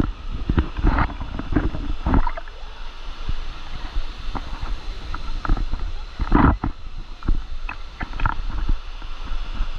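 Rushing water of a waterfall, a steady hiss, with gusts buffeting the microphone in rough low thumps, the strongest about six seconds in.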